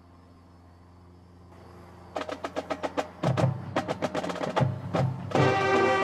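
Marching band drumline starting up: a run of quick sharp clicks about two seconds in, then snare and bass drums come in with heavy low hits, and the full band with brass joins near the end.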